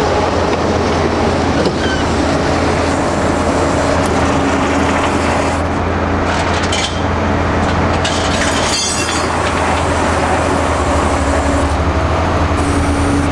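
Steady vehicle road noise: a continuous low hum with an even rush over it.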